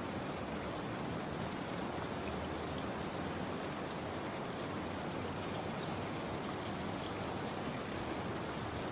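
Steady rain falling, an even hiss of rain with faint scattered drop ticks.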